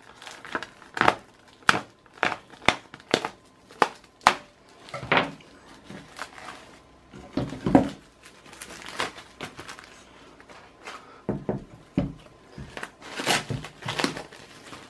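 Plastic stretch wrap crinkling and crackling in irregular bursts as it is pulled off a 3D printer's aluminium frame, with a few duller knocks as the frame is handled on the table.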